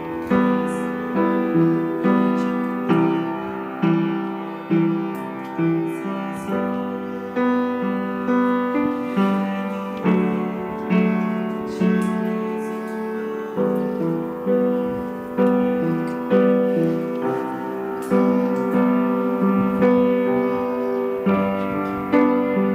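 Piano playing a slow instrumental tune, the notes struck roughly once a second and left to fade.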